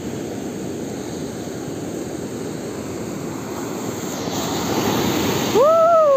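Sea surf rushing on the beach, growing louder as a wave washes in over the last couple of seconds. Near the end a person gives one drawn-out exclamation that rises and then falls in pitch.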